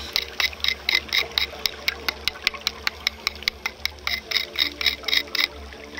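Rapid, rhythmic scraping strokes underwater, about four or five a second, from a diver scrubbing reef rock clean to prepare it for epoxying coral. The strokes stop shortly before the end.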